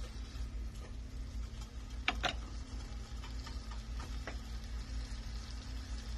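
Diced carrots and pineapple sautéing in a frying pan with a faint sizzle over a steady low hum, and a couple of light clicks about two seconds in as a wooden spoon is set down on its rest.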